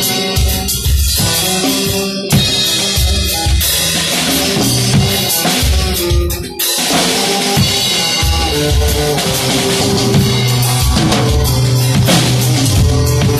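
Mapex acoustic drum kit played in a groove, with bass drum, snare and cymbals, over recorded band music with a bass line and other pitched instruments. There is a brief break in the playing about six and a half seconds in.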